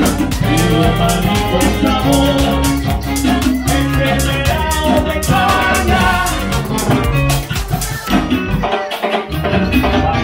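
Live band playing upbeat dance music with a drum kit and a steady beat; the sound thins out about eight seconds in.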